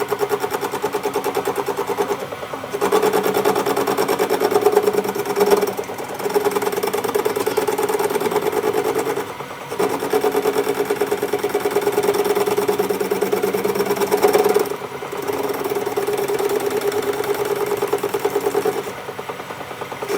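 A metalworking machine running with a steady hum and a fast, even rattle, cutting out briefly several times.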